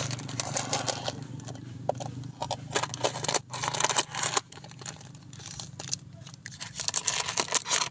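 Thin plastic tire wrapping being slit and torn open with a knife, crinkling and crackling in quick irregular clicks, over a steady low hum.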